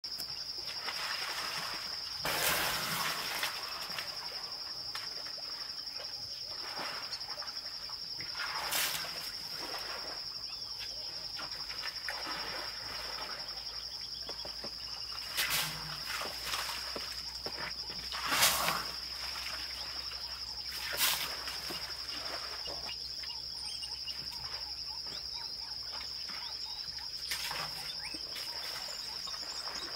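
A steady high-pitched insect drone runs throughout, and about five short, louder splashes break in as an African elephant works its trunk in the muddy water of a waterhole.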